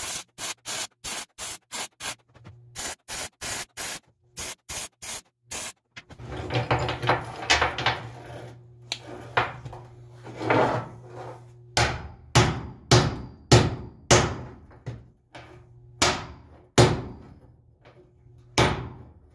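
MIG welder laying short tack bursts on a rusty chain link and lifting hook, about two a second, for the first six seconds or so. After that comes scraping and knocking on the metal, then a run of sharp metal knocks, each ringing briefly, about half a second to a second apart.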